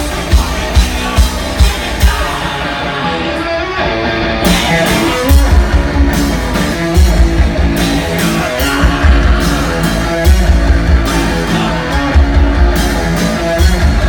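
A live punk rock band playing loud, with drum kit, electric guitar and vocals. It opens on steady, regular drum hits, and the full band comes in hard about four and a half seconds in.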